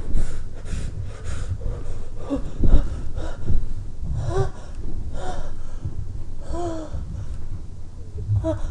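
A woman's heavy breathing: repeated gasping breaths about once a second, several of them voiced as short moans that rise and fall in pitch. A low thump comes a little under three seconds in. No sneeze comes out.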